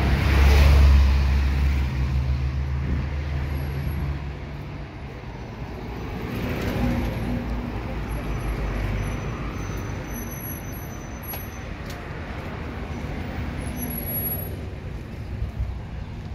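Street traffic: a motor vehicle's engine running loudly close by, loudest about a second in and fading away after about four seconds, then the steady noise of passing traffic.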